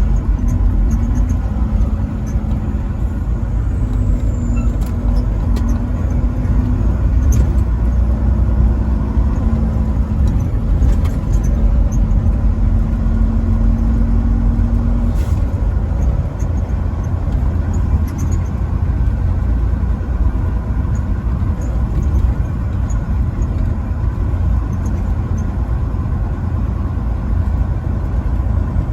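Steady low rumble of a truck driving down the road, with a low hum that drops out about halfway through.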